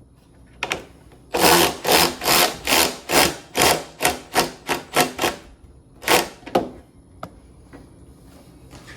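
Hand-tool work on a Jeep fender's fittings: a quick run of about a dozen short rasping strokes, roughly three a second, then two more and a single click.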